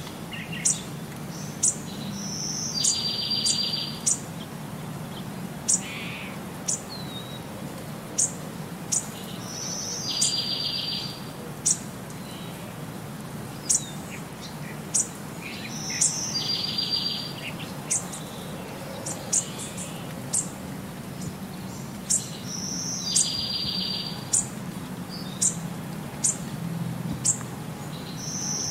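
Birds chirping: short high chirps about once a second, with the same trilling phrase repeating every six or seven seconds, over a low steady hum.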